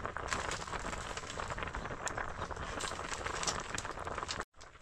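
Crackling and sizzling of cooking over a fire: a steady hiss full of many small sharp pops.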